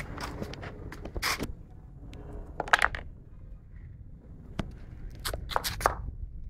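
A string of irregular sharp pops and cracks over a low rumble, the loudest about three seconds in: HHO (oxyhydrogen) gas igniting as a motorbike is run on HHO alone.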